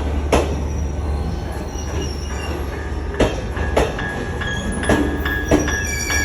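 Train running on the rails with a steady low rumble, its wheels knocking sharply over rail joints every second or so, and thin high wheel squeals setting in near the end.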